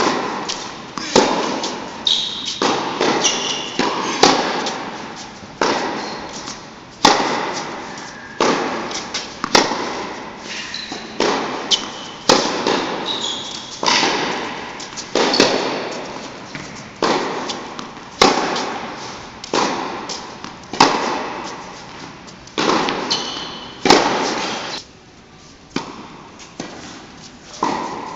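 Tennis balls struck by rackets and bouncing on the court in a rally: sharp pops about every second and a half, each ringing on in the echo of a large indoor hall.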